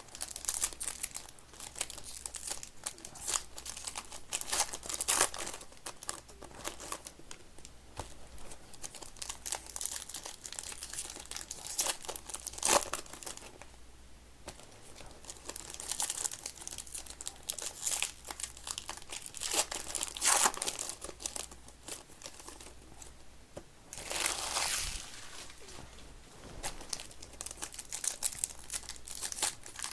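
Trading card pack wrappers being torn open and crinkled by hand, in irregular rustles with a few louder bursts of crinkling.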